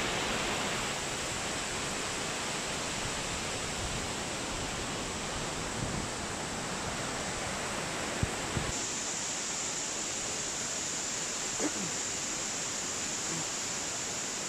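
Steady rush of a waterfall and stream pouring over rocks. The tone of the rushing shifts about two-thirds of the way through.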